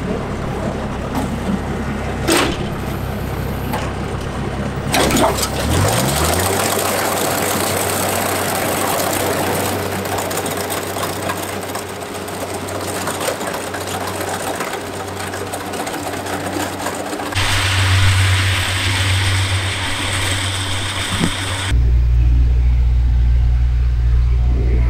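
A rice harvester's motor running steadily, its pitch rising about six seconds in. The sound changes abruptly twice more, near two-thirds of the way and again near the end.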